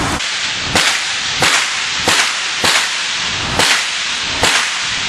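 Gunshots at a shooting range: six sharp shots fired a little under a second apart, each trailing off briefly.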